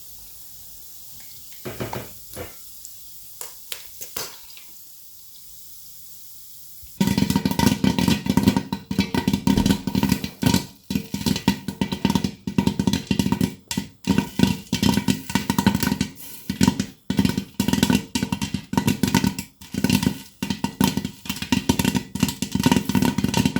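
A few short knocks over a low hiss, then, about seven seconds in, loud guitar music with a steady beat starts suddenly and carries on.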